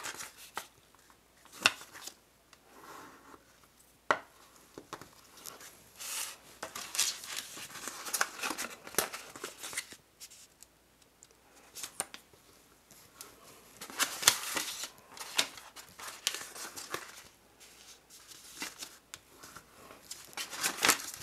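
Scored cardstock being folded and its creases pressed flat with a bone folder: paper rustling and the folder scraping along the fold lines in irregular strokes, with a few sharp clicks.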